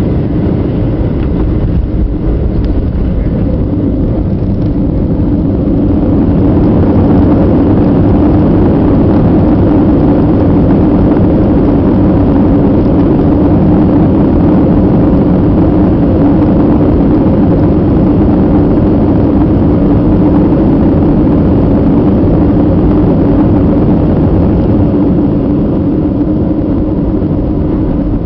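Boeing 737 rolling out on the runway after touchdown, heard from inside the cabin: a loud, steady rush of engine and wheel noise with a low hum, growing louder about six seconds in and easing a little near the end.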